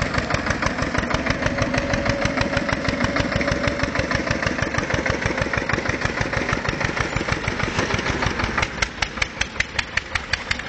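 Engine of a small homemade tractor running as it drives off along the road, a steady put-put beat of several pulses a second. From about eight and a half seconds in it gets a little quieter and the separate beats stand out more sharply.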